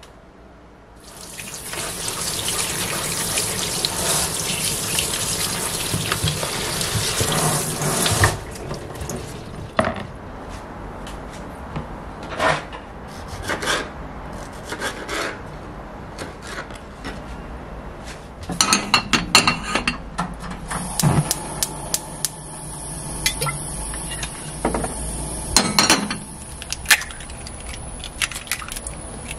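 Tap water running into a kitchen sink for several seconds. Then a knife taps repeatedly through cherry tomatoes on a wooden cutting board. In the last third, oil sizzles steadily in a frying pan on a gas stove, and eggs are cracked into it near the end.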